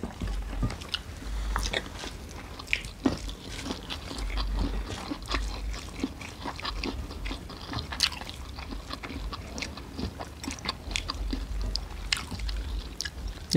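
Close-miked eating sounds: chewing and biting, with many small irregular clicks and taps as food is picked up by hand from the plates.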